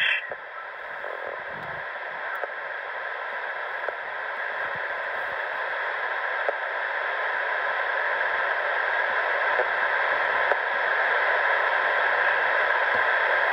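Railroad scanner radio hissing with static between transmissions: a steady rushing noise that slowly grows louder, with no voice on the channel.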